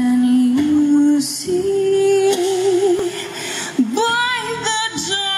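A woman's solo singing voice from a performance track played over a loudspeaker, holding long notes that step upward, then a wavering high note and quick ornamented runs about four seconds in.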